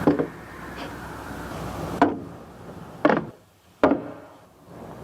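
Four sharp knocks at uneven intervals, spread over about four seconds.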